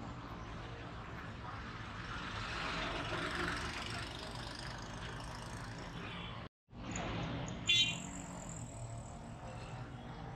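Busy street traffic from auto-rickshaws, motorcycles and cars, a steady background rush that swells a little early on. The sound cuts out completely for a moment about six and a half seconds in, and just after it comes a brief, shrill, high-pitched beep, the loudest sound here.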